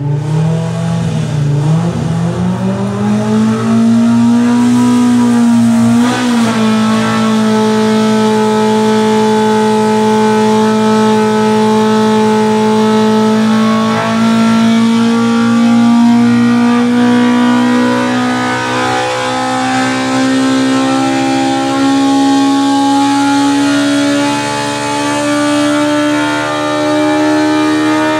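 Big-bore Polaris Pro R four-cylinder engine making a full-throttle dyno pull. Its pitch climbs quickly in the first few seconds, then rises steadily as it sweeps up to about 9,000 rpm, and falls away at the very end as the throttle closes. It is breathing through a 3D-printed 68 mm prototype throttle body.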